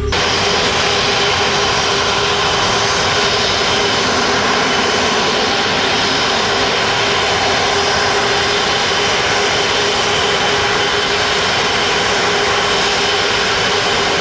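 Airbus A330-200 jet engines running with a steady, unchanging whine and rush of noise.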